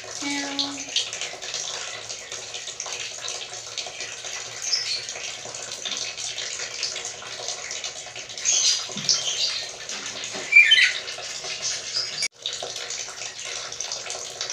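Black-capped lory giving a few short, squeaky calls, the loudest about two-thirds of the way in, over a steady hiss.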